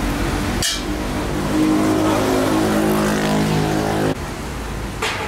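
A motor or engine running with a steady pitched hum. It starts abruptly less than a second in and cuts off just as abruptly about four seconds in.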